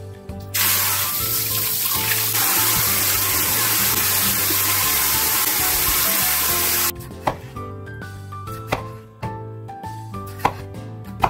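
Kitchen tap running full for about six seconds while potatoes are washed, then shut off suddenly. A kitchen knife then cuts peeled potatoes on a wooden cutting board, a handful of sharp knocks against the board.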